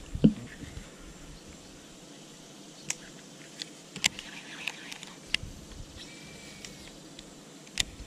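A handful of sharp, isolated clicks over a faint steady background hiss, the loudest just after the start, and a brief thin high whistle around six seconds in.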